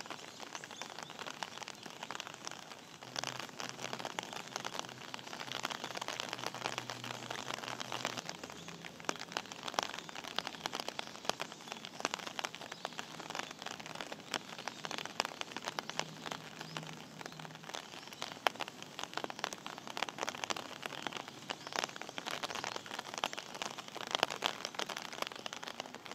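Steady rain falling, a dense pattering of many small drop ticks on hard wet surfaces. A faint low hum comes and goes underneath.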